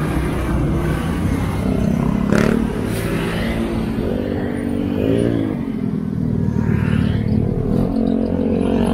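Road traffic passing close by: the engines of scooters and motorcycles and a diesel dump truck running together in a steady hum. About five seconds in, one engine's pitch rises and falls, and there is a short knock a little earlier.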